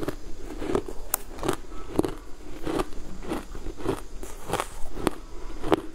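Crushed ice crunching between teeth, close-miked: a steady run of sharp crunches, about three a second, as a mouthful is chewed.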